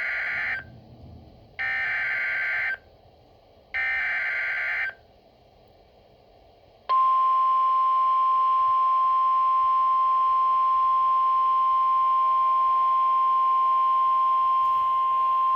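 NOAA Weather Radio Emergency Alert System (SAME) header: a burst of warbling digital data tones, sent three times, each about a second long and about two seconds apart. About seven seconds in, the steady single-pitch 1050 Hz weather radio warning alarm tone starts; it signals that a warning broadcast follows.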